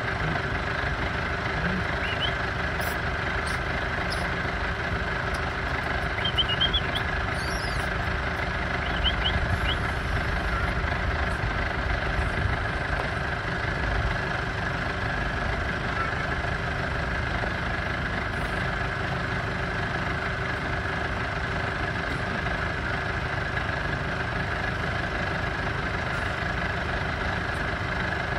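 Safari vehicle's engine idling steadily, a constant low rumble and hum.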